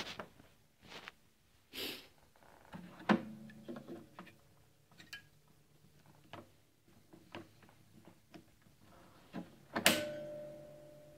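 Plastic clicks and knocks from the battery drawer of a Fishman Presys guitar preamp being worked into its slot in the guitar's side. The drawer is stiff to close and the battery won't sit right. Near the end a sharp knock sets the guitar ringing briefly.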